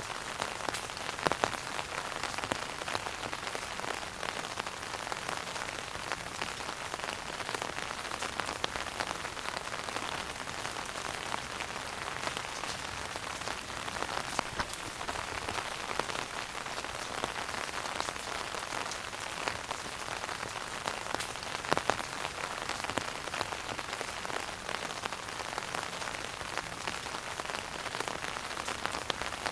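Wood fire burning in a fireplace: a steady hiss of small crackles, with a few sharper pops, one about a second in and one about three-quarters of the way through.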